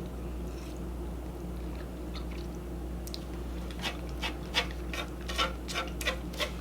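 Close-up chewing of food, heard as a run of short wet mouth clicks, a few a second, starting about halfway through, over a steady low hum.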